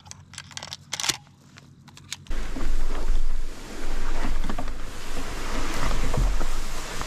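A few light clicks and knocks as a shotgun is handled. Then, about two seconds in, a sudden loud rustling with a low rumble as the Hobie pedalboard, carrying the camera on its mount, is dragged through tall grass.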